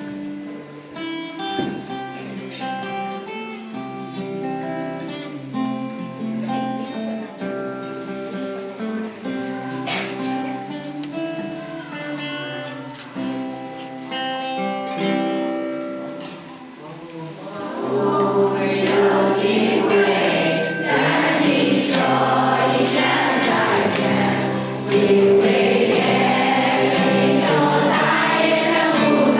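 A group of voices singing together with a guitar accompaniment; the singing swells louder and fuller about two-thirds of the way through.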